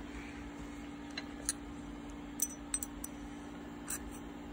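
A handful of short, light metal clicks and clinks as a steel ratchet gear and a caliper are handled and touched together, over a steady low hum.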